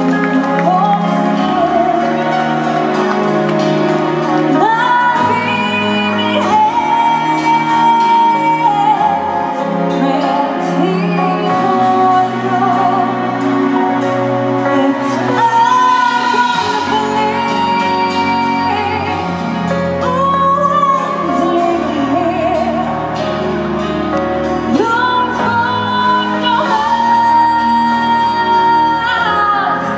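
A woman singing a slow ballad into a handheld microphone over instrumental accompaniment, holding long notes, some with vibrato.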